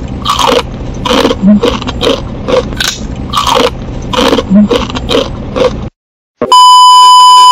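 Close-miked chewing and crunching of crisp fried food, a sharp crunch about every third of a second. About six seconds in it drops to dead silence, then a loud steady TV test-pattern beep starts.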